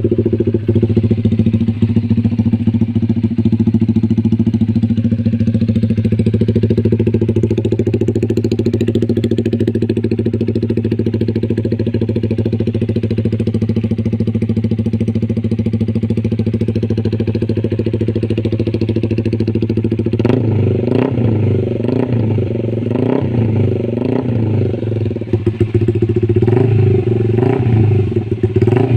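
Honda Supra GTR 150's single-cylinder engine running through an SC Project aftermarket exhaust, idling with a steady note. About two-thirds of the way through the note turns uneven, with a series of short throttle blips.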